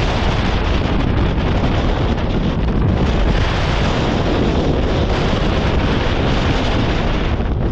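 Strong wind buffeting the microphone, a loud steady rumbling roar.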